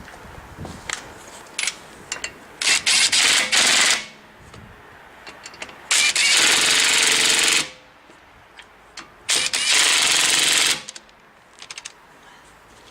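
Ridgid 18V brushless half-inch impact wrench hammering on wheel lug nuts through a 19 mm socket, in three bursts of about one and a half seconds each, with a few short clicks between them.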